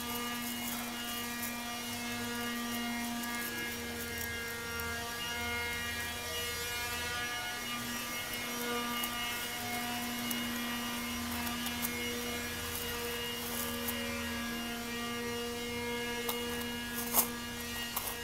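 A steady electrical or machine hum with many even overtones, over which 3D-printed plastic chain-mail links faintly click and rustle as they are handled. A single sharper click comes near the end.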